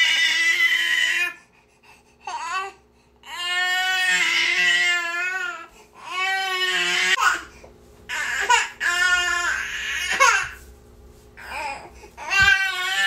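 Infant crying in a series of high-pitched wails of one to two seconds each, broken by short catches of breath.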